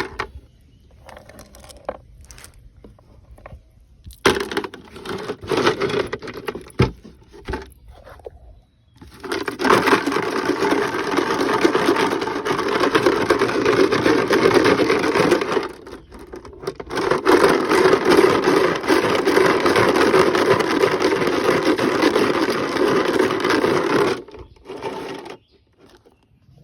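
Greasy transmission pan bolts being cleaned. First scattered knocks and scrapes, then two long spells of continuous scrubbing and rattling noise, each several seconds long, with a short break between them.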